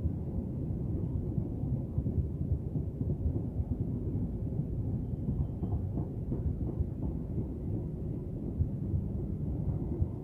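Passenger train coaches running past close by: a steady low rumble of steel wheels on the rails.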